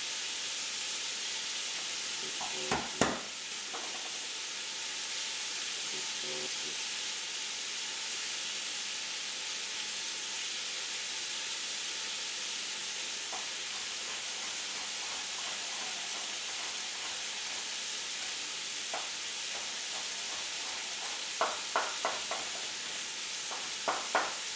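Ground meat sizzling steadily as it browns in a pot. A couple of sharp knocks come about three seconds in, and a quick run of taps near the end.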